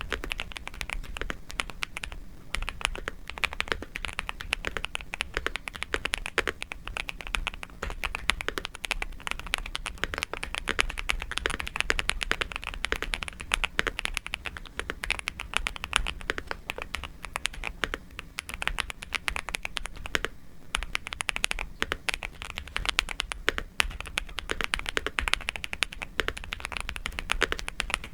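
Fast, continuous typing on a Nuphy Gem 80 mechanical keyboard: a dense stream of key clacks, with a brief pause about twenty seconds in.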